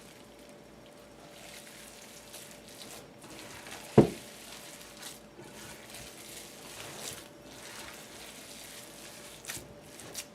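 Hands squishing and working ground-beef mixture in a bowl, soft and wet, with one sharp thump about four seconds in and a couple of light clicks near the end.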